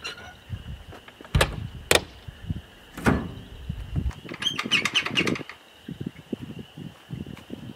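Work at an outdoor wood-fired boiler: a few sharp knocks and clanks from the firebox door and firewood, then a quick run of rattling clicks about four and a half seconds in. A low rumble underneath stops about four seconds in.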